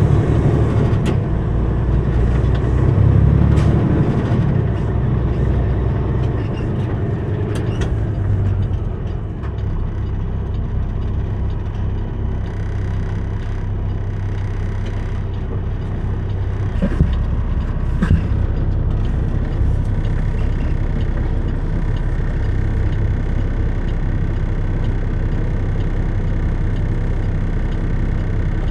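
Semi-truck's diesel engine running under way, heard from inside the cab: a heavier rumble for the first eight seconds or so, then a steadier, slightly quieter drone. Two short knocks about a second apart, some seventeen seconds in.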